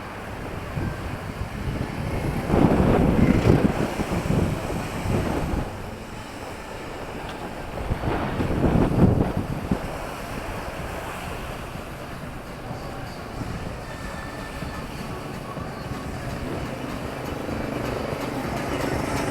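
Town street traffic: two vehicles pass close by, one about three seconds in and another near nine seconds, over a steady background rumble of traffic.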